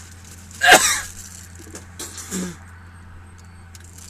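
A man's loud, short vocal outburst with a falling pitch about a second in, then a brief falling groan near the middle: reactions to the burn of a Tabasco pepper he is eating.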